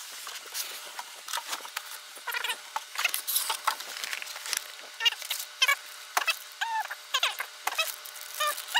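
Cardboard box and foam packing being handled as the box is opened: a busy run of short scrapes, taps and squeaks as cardboard and foam rub and slide against each other.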